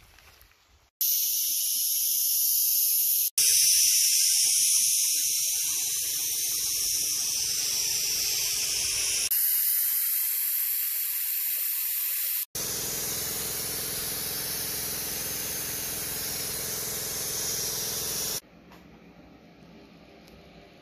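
Sandblaster nozzle hissing loudly as it blasts rust off Ford Model T front-end suspension parts (front axle and wishbone radius rods). The hiss comes in four stretches, each starting and stopping abruptly, from about a second in until shortly before the end.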